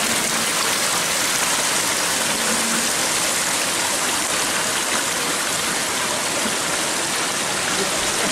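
Waterfall rushing: a steady, loud wash of falling water with a hissy top and no change in level.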